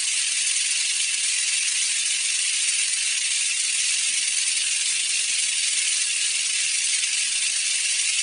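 Clone Lego Power Functions buggy motor running free at 9 V with no load: a steady, high, hissing whirr.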